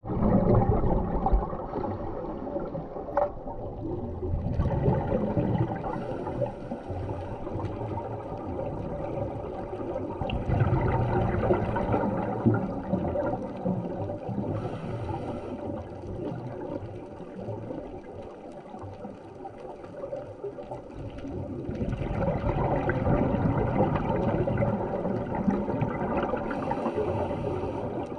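Underwater ambience picked up by a diving camera: a continuous rushing, gurgling water noise that swells and fades, with a faint steady hum underneath.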